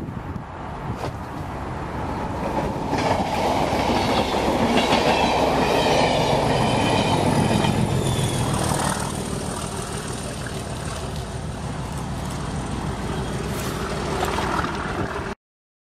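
A locomotive-hauled train of coaches passing close by at speed, its wheels clacking over the rail joints. The sound swells as the coaches go past and then fades as the train draws away. It cuts off suddenly near the end.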